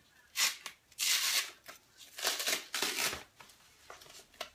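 Tape being peeled and the protective plastic packaging of a new iMac rustling and tearing as a cover is pulled off, in a few short scratchy bursts.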